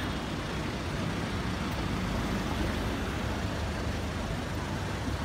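Steady street traffic noise, a low rumble of engines and tyres, with a minivan driving past close by.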